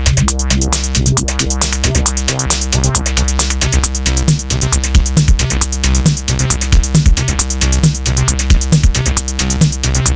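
Electronic music from a Korg Volca synthesizer: a steady, fast drum-machine beat with a repeating bass line looping underneath.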